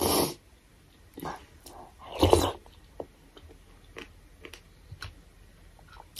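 Close-miked eating sounds of a person taking spoonfuls of thukpa noodle soup: short noisy mouth sounds as she eats from the spoon, the loudest about two seconds in, then chewing with a few small sharp clicks.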